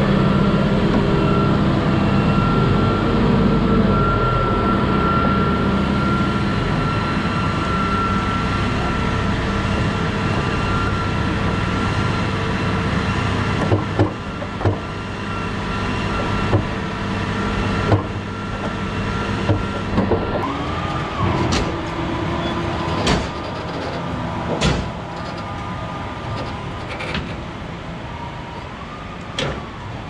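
Farm loader's diesel engine running steadily while its hydraulics work a silage grab bucket. From about halfway, a series of sharp metallic clanks and knocks as the boom and grab move.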